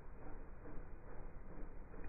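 Exhaust of a Toyota Agya / Daihatsu Ayla idling, heard slowed down: a low, uneven rumble of exhaust pulses.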